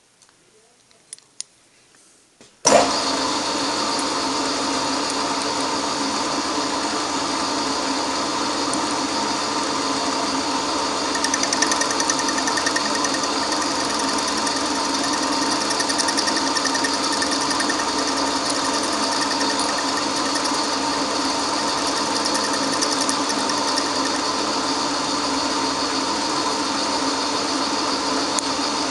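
A few faint clicks, then from about three seconds in a milling machine runs steadily with several steady tones, milling the TIG-welded cast-aluminium cylinder head plate; the sound gets a little busier about eleven seconds in.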